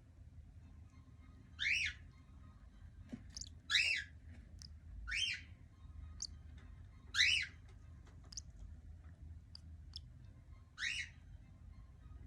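A cockatiel repeating a short whistled call about five times, each call rising and then falling in pitch, with a few brief high chirps between the calls.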